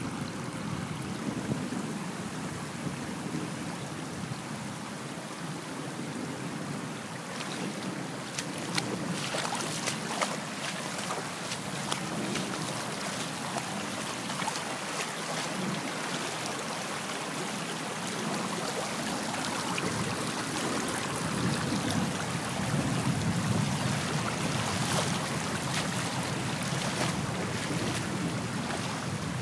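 Floodwater running across a yard in heavy rain: a steady rushing wash of water, with many small splashes scattered through it, getting a little louder in the second half.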